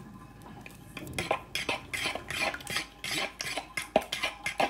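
A utensil stirring batter in a plastic bowl: repeated quick clicks and scrapes against the bowl, about four a second, starting about a second in.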